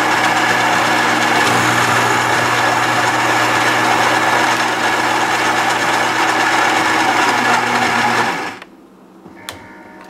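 Built-in burr grinder of a Gaggia Brera super-automatic espresso machine running steadily, grinding beans for a shot at the three-bean strength setting. It cuts off about eight and a half seconds in, leaving a quieter machine hum with a couple of clicks.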